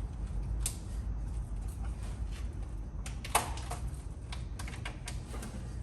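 Scattered light clicks and taps of hands handling wiring and connectors, with one sharper click about three and a half seconds in, over a steady low hum.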